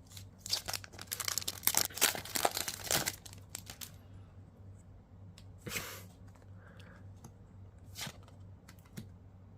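A One Piece trading card booster pack's wrapper being torn open with crinkling rustles for about three seconds, followed by a brief rustle and a soft click as the cards are handled.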